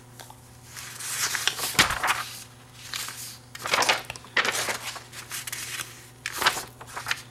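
Paper instruction sheets being handled and their pages turned: a few short rustling swishes.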